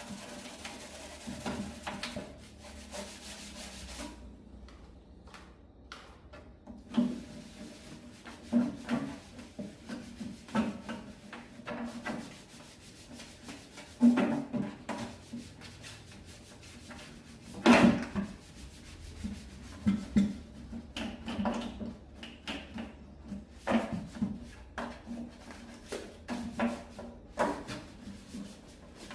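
Irregular rubbing and scraping with scattered short knocks and clatters, from hand work on hard objects.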